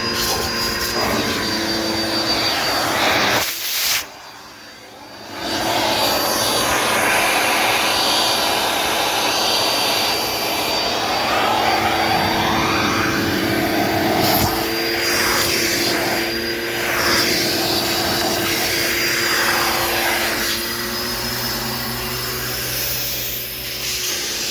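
Dirt Devil Multi-Surface upright vacuum running at full suction, a steady whooshing with a high whine, picking up wrappers. The sound briefly drops away about four seconds in, then comes back.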